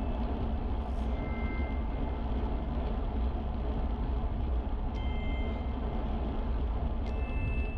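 Steady low rush of wind and rolling noise from a bicycle riding along a trail. Three short high-pitched tones, each about half a second long, come about a second in, about five seconds in and about seven seconds in.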